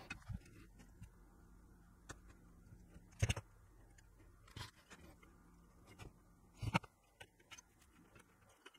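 A few short, sharp clicks and taps of small tools and parts being handled while soldering components onto a circuit board, over a quiet background; the loudest click comes about a third of the way in, another about three-quarters through.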